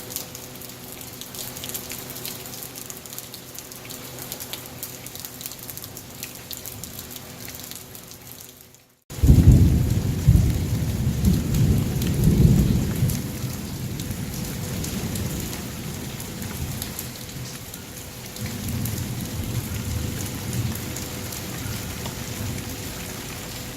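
Steady rain hiss. About nine seconds in, after a short break, a loud low rolling rumble of thunder comes in over the rain. It eases and swells again later.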